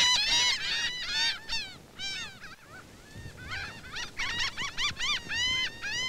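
Laughing gulls calling: quick runs of short arched notes, several a second, with a lull from about two to three and a half seconds in.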